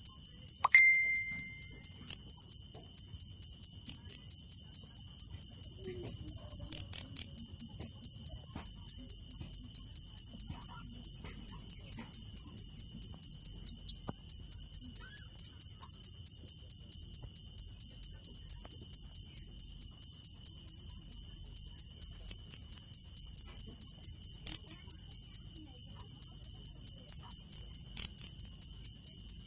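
A cricket chirping close by in a steady, even rhythm of about three to four high chirps a second, with one short break about eight seconds in. A brief high whistle-like tone sounds about a second in.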